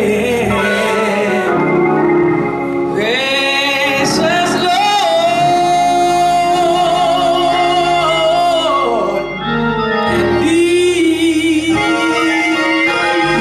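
A woman singing a gospel solo into a microphone over organ accompaniment, holding two long notes with vibrato in the second half.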